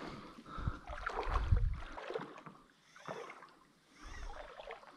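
Shallow river water sloshing and splashing around the legs of a person wading, in irregular bursts with a sharper splash about three seconds in.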